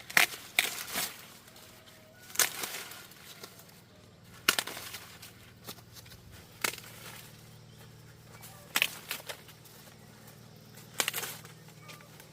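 A series of sharp cracks and rustles, each about a second long, coming roughly every two seconds over a faint low hum.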